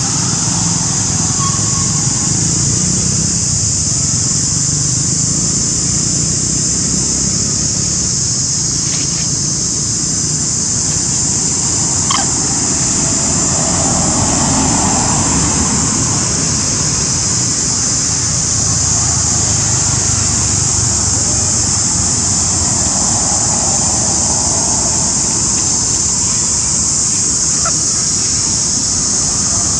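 Steady, loud, high-pitched drone of an insect chorus, with a low rumble beneath it.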